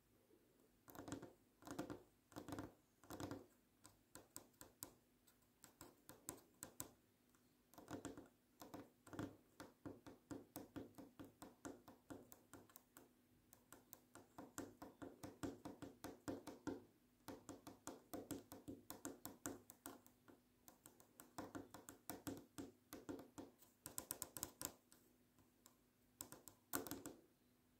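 Long fingernails tapping on a wooden tabletop: soft, sharp clicks in quick flurries of several taps a second, broken by short pauses.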